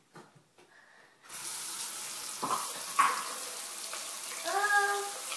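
Bathroom sink tap turned on about a second in and running steadily, with a plastic toy razor rinsed under the stream.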